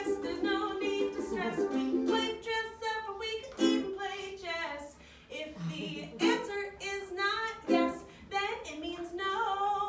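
Ukulele strummed with a voice singing along to it.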